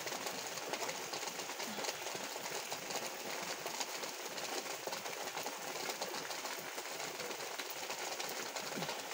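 Steady rain falling, an even hiss packed with fine pattering drop ticks.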